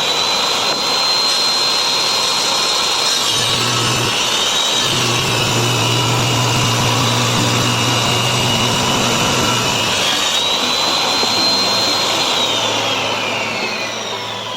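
Electric woodworking power tool running at high speed, its motor whine dipping in pitch around three to five seconds in as it takes load in solid wood, then recovering, and falling away again near the end.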